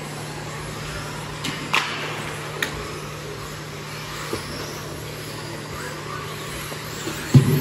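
Electric 1/10-scale RC off-road buggies racing on an indoor track: a steady hum and hiss, with a few sharp knocks a couple of seconds in and a heavier thump near the end.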